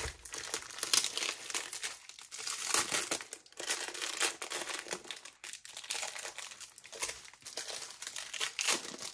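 Plastic wrapping crinkling and crackling unevenly as it is handled and pulled off.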